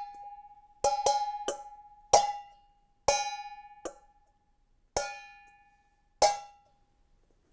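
Metal cooking pot struck as a percussion instrument in a rhythmic phrase of about eight strikes. Each strike rings on at one clear pitch and fades, because the pot is left free to resonate.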